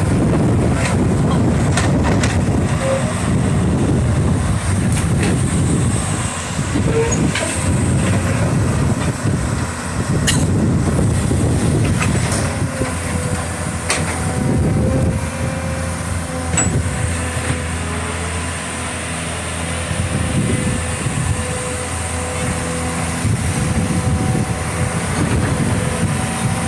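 Diesel engine of a clamshell-grab excavator working under load, its note rising and falling as it swings and digs sand from a barge. There are occasional metallic knocks, and a steady thin whine comes in about halfway through.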